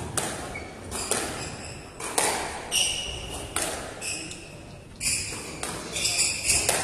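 Squash rally: the ball is struck by the racquets and smacks off the court walls about once a second, with short, high squeaks of the players' shoes on the wooden court floor in between.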